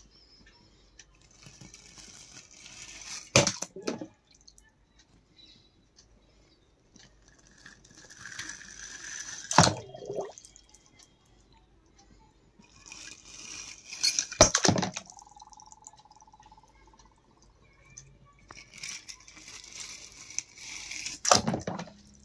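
Water rushing and splashing around toy cars in four rounds about five to seven seconds apart. Each round builds for a second or two and ends in a sharp knock and splash. A short whistle-like tone follows the third knock.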